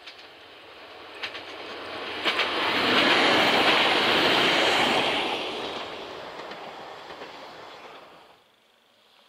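ZSSK class 861 diesel multiple unit passing at speed. The rumble of its wheels on the rails builds to a loud peak, with a few sharp clicks from the rail joints as it comes close. It then fades and cuts off abruptly near the end.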